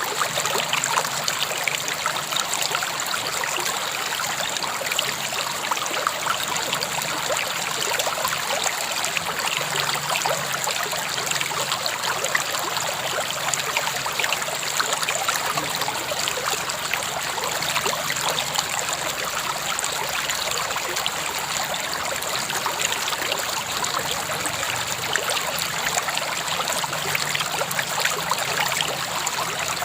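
River water flowing steadily over stones, a constant rushing babble with small splashes and trickles throughout.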